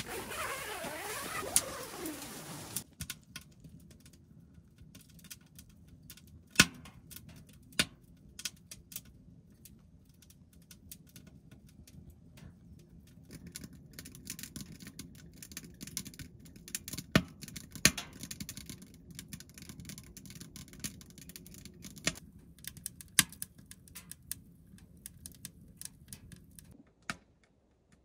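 A tent door zipper pulled shut, a rasp lasting about three seconds. Then a wood fire crackling in a hot-tent wood stove: many sharp pops and snaps, a few of them loud, over a low steady rush of the burning fire.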